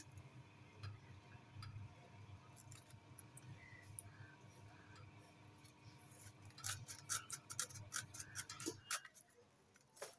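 A blunt hand sickle cutting and scraping at the dry frond bases and fibre of a young date palm: faint scattered crisp clicks and snaps, thickest in a quick run about seven to nine seconds in.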